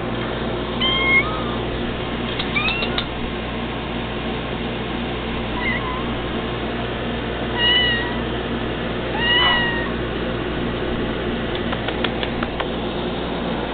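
Domestic cats meowing, about six short meows spread through, some rising in pitch, over a steady low hum.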